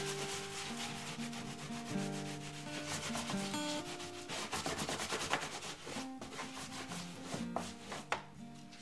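Rapid scratchy rubbing of paper by hand over an inked linocut plate, burnishing the sheet to take a relief print. Quiet acoustic guitar music plays underneath.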